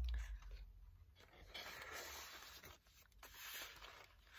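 Faint rustling and sliding of paper and card in two short spells, as a small handmade paper booklet is folded shut and tucked into a paper pocket on a journal page.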